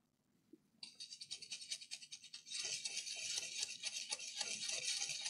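Brush bristles scrubbed rapidly back and forth over a laptop motherboard, a dry hissing scrub made of many quick strokes, cleaning liquid-damage residue off a chip's pins that may be shorting them. It starts about a second in and gets louder about halfway through.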